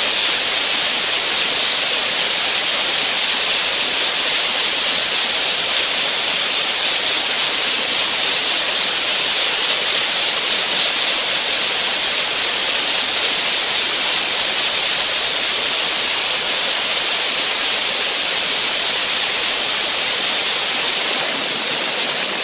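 Soda blaster nozzle spraying baking-soda media with compressed air, a loud, steady hiss that eases off slightly near the end.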